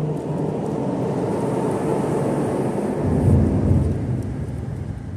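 Traffic passing over a bridge: a rumble that swells to its loudest about three seconds in, then fades away.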